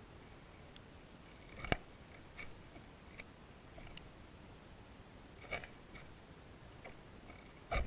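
Sparse, irregular clicks and taps against a camera submerged in a fish tank. Two sharper knocks stand out, one about a second and a half in and one near the end.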